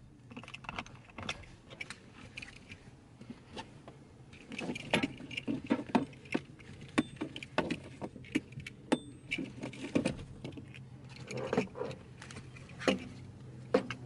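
Metal hardware on a Tanaka seat belt harness jingling and clicking as the straps are handled and fitted over a bucket seat: a string of short, irregular clicks, busiest in the middle and again near the end.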